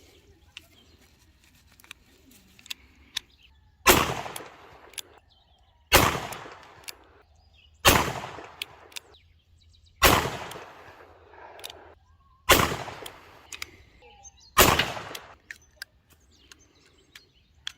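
Orbea .38 Special revolver firing: six loud shots about two seconds apart, each with a ringing, echoing tail. A few faint metallic clicks come before the first shot.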